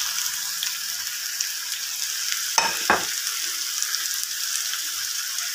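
Sliced onions and chopped tomatoes sizzling steadily in hot oil in a pan, with two sharp knocks close together a little past halfway.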